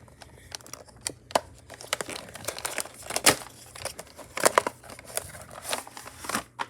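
Action figure packaging being opened by hand: irregular crinkling, rustling and tearing of the packing.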